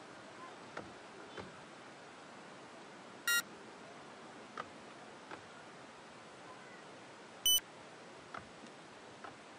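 Three short, high-pitched squeaks or beeps about four seconds apart, each at a different pitch, with a few faint clicks over a steady low hiss.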